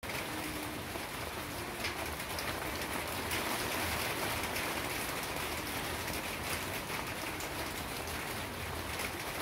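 Steady rain falling, with many small drop ticks through the hiss.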